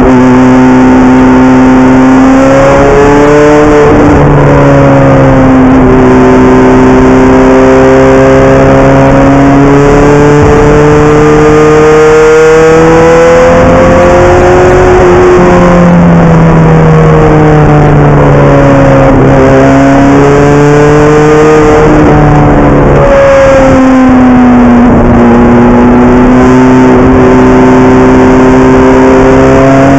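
Ferrari F430 GT race car's V8 engine heard loud from inside the cockpit while lapping. Its pitch climbs under acceleration, drops sharply at several gear changes, and sinks slowly as the car slows for corners.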